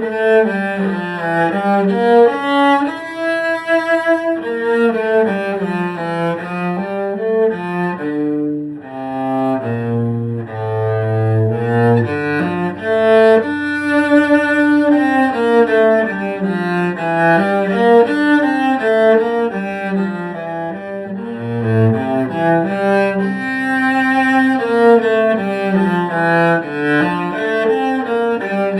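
Solo cello being bowed through a melodic passage, notes moving up and down without a break and dipping to low notes about ten seconds in.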